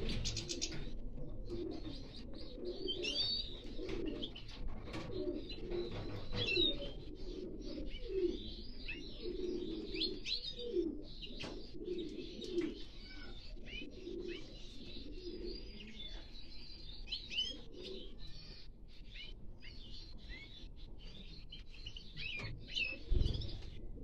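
Small finches chirping and twittering, many short high calls throughout, over a low repeated call that fades out about two-thirds of the way in.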